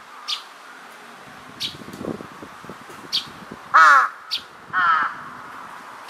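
Large-billed crow giving two loud, harsh caws about a second apart, near the middle. Short, high chirps come in between them, four times.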